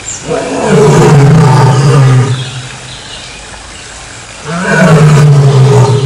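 Male lion roaring: two long, deep roars, the first lasting about two seconds, the second beginning about four and a half seconds in.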